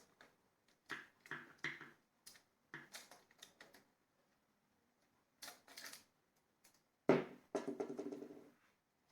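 Light clicks and knocks of plastic and metal parts of a 3D-printed crossbow being handled, in several short clusters. About seven seconds in comes a sharper, louder knock followed by a pitched ring that dies away over about a second and a half.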